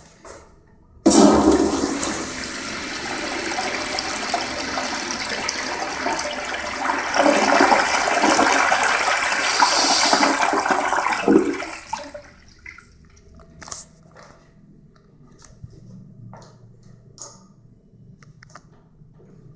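Universal Rundle Athens toilet flushed by a Sloan Royal flushometer valve: a sudden loud rush of water starts about a second in and runs for about eleven seconds. Then the valve shuts off sharply, leaving only a few faint clicks.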